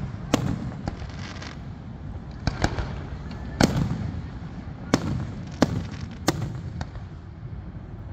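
Fireworks display: bursts going off with sharp bangs, about nine at irregular intervals, some ringing on briefly after the bang.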